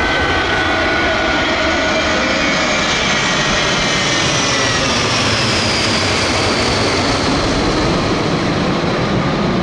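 Airplane engine noise: a steady, loud rush with faint tones that glide slowly down in pitch.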